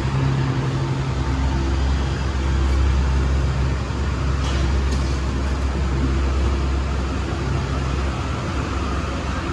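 Airport apron bus engine running with a steady low hum, heard from inside the bus over steady road and rain noise.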